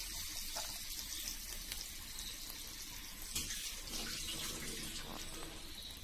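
Water sizzling and bubbling in a hot frying pan around thinly sliced potatoes: a steady hiss with a few faint crackles.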